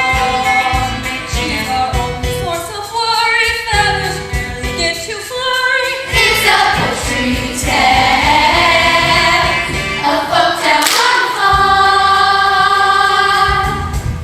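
Stage musical number: a youth ensemble singing together over recorded or band accompaniment, with several long held notes near the end.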